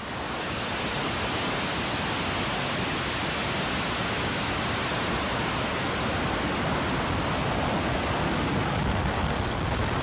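Starship SN8 prototype's three Raptor methane engines firing during liftoff and climb. It is a steady, even noise that swells over the first second and then holds.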